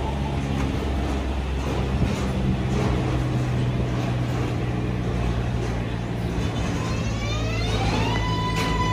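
New York City subway train on the L line: a steady low electrical hum, then about seven seconds in the traction motors' whine rises in pitch and settles into a steady high tone, the sound of the train's electric propulsion starting to pull away.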